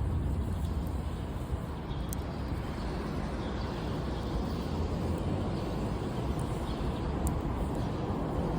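Campfire burning with a steady rushing noise and a couple of faint sharp pops, about two seconds in and near the end.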